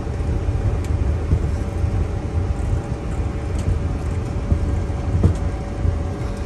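Boeing 737-500 cockpit noise: a steady low rumble of the aircraft moving on the ground, with a faint steady whine from its CFM56 engines and a light knock about five seconds in.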